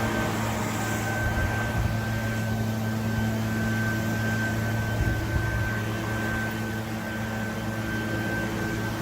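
Engine running at a steady speed, a constant hum with a thin high whine over it.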